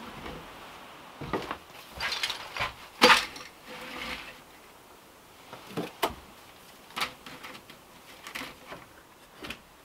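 Books being set down and slid onto a wooden shelf, then a wicker basket pushed onto the shelf below: scattered knocks and scrapes of book and wicker on wood, the loudest about three seconds in.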